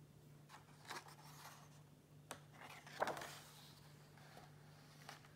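A hardcover picture book's page being turned by hand: a few soft taps and a brush of paper sliding about three seconds in. A faint steady low hum runs underneath.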